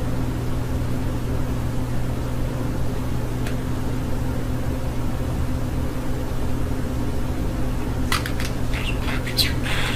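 Steady low mechanical hum at a constant pitch, with a few faint, brief high sounds near the end.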